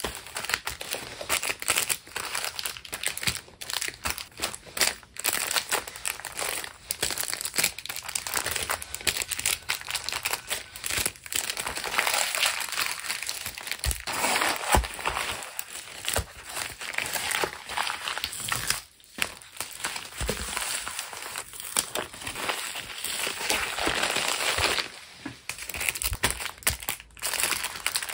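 Crinkling and rustling of packaging and paper goods handled during hand packing of stationery, with many small taps and clicks throughout.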